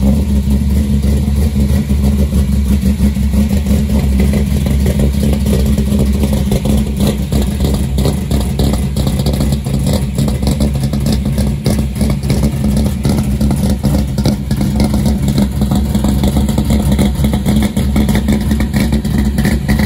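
1986 Chevrolet square-body pickup's engine idling steadily and loud, with a deep, even note that holds without revving.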